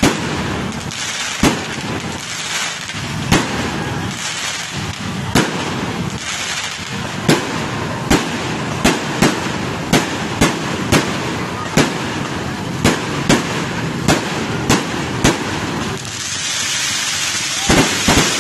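Aerial fireworks going off: shells bursting in sharp bangs, irregularly about one to two a second, over a steady background of noise. Near the end a louder hiss sets in, followed by a quick run of bangs.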